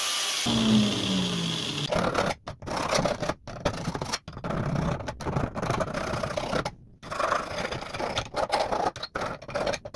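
An angle grinder winding down with a falling whine in the first two seconds, then a hand file rasping back and forth along the freshly cut edge of a circular saw's metal upper blade guard, in a series of uneven strokes with short pauses between them.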